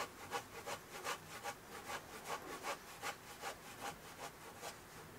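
A curved hand pruning saw cuts through a branch in steady back-and-forth strokes, about three a second. The strokes stop shortly before the end.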